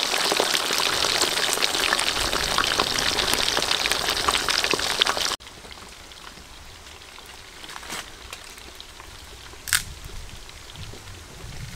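Whole sea fish deep-frying in hot oil in a wok: a loud, dense sizzle and crackle that cuts off suddenly about five seconds in. After that comes a much quieter frying hiss with a few sharp clicks.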